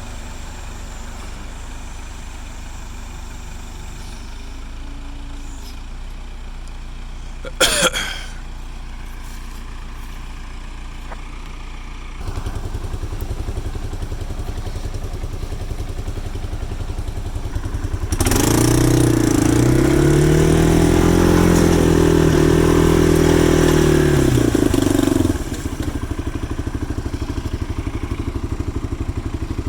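Case 580E backhoe's engine running steadily, picking up about twelve seconds in, then revving hard for about seven seconds, its pitch rising and falling under load as the hoe pulls on a tree chained to it, before dropping back. A brief high squeal sounds about eight seconds in.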